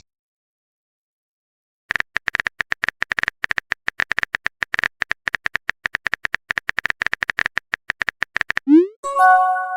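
Smartphone keyboard typing sound effect: rapid, irregular key clicks starting about two seconds in and running for several seconds. Near the end comes a message notification tone, a quick rising sweep followed by a short chime.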